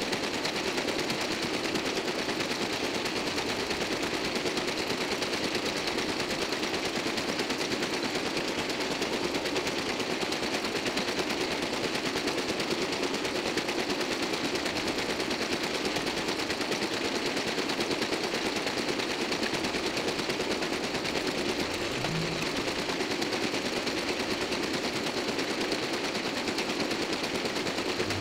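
Toko 810 small offset printing press running steadily through a print run, a fast continuous mechanical clatter.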